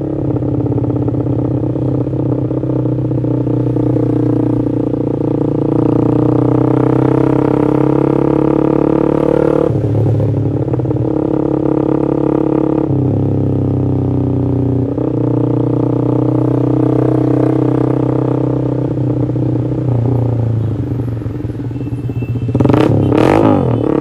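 Yamaha MX King 150's single-cylinder four-stroke engine breathing through an aftermarket X1 Speed Racing SH-01 exhaust, heard on board while riding: a loud, steady deep drone with a few short breaks and pitch changes, and a quick rising rev near the end.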